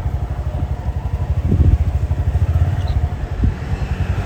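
Motorcycle running on the move: a steady heavy low rumble with fast pulsing.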